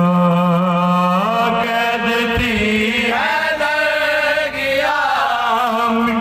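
Man chanting a marsiya (Shia mourning elegy) into a handheld microphone in long, wavering, ornamented held notes, with a steady low hum beneath.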